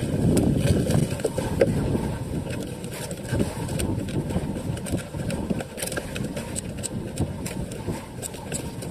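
Small outrigger fishing boat's engine idling, a steady low rumble mixed with wind and sea noise.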